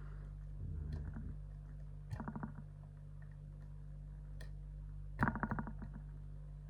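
Metal lock pick clicking against the pins inside an ISEO six-pin lock cylinder, in two short bursts of rapid clicks about two and five seconds in, with a few single ticks between. A steady low electrical hum runs underneath.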